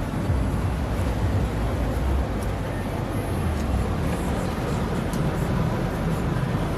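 Steady rushing noise inside a car driving through a heavy rainstorm: a low rumble of engine and wet tyres under an even hiss of rain.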